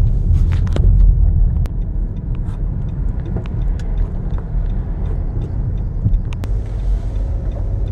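Car driving along a street, heard from inside the cabin: a steady low rumble of engine and tyre noise, a little louder for the first second or so, with a few light clicks.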